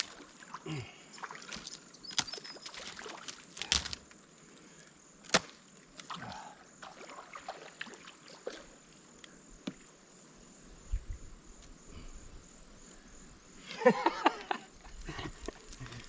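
Scattered cracks, knocks and rustling of someone scrambling down a brushy riverbank on foot, with sticks and wood snapping and knocking underfoot, and a louder flurry of it near the end.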